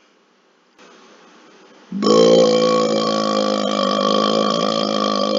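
A long, deliberate burp forced up from a stomach full of swallowed air, starting suddenly about two seconds in and holding a steady low pitch.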